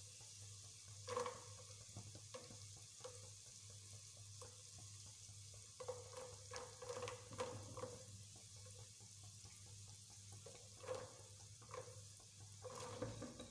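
Diced onion, garlic and green chilli frying in oil in a non-stick pot: a faint, steady sizzle. Scattered light clicks and taps come as chopped carrots are tipped in from a plate and stirred.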